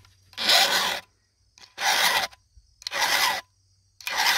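Round chainsaw file rasping across a chainsaw chain's cutter in four even strokes, about one a second, as the chain is sharpened by hand on the bar.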